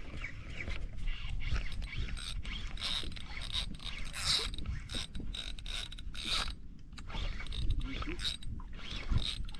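Spinning reel being cranked, its gears whirring.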